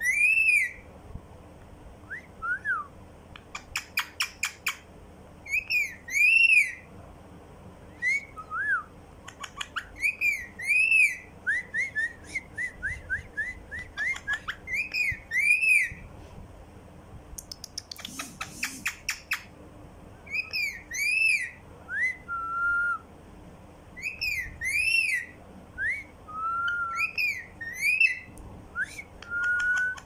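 Rose-ringed (Indian ringneck) parakeet whistling and chirping: repeated arched whistles and short rising and falling notes, broken by quick trains of clicks. A few lower, longer held whistles come in the second half.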